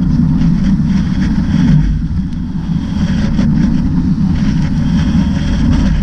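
Front Runner center-console motorboat running through rough, choppy sea: a steady low rumble of engine, wind and rushing water, with a few faint knocks as the hull meets the waves.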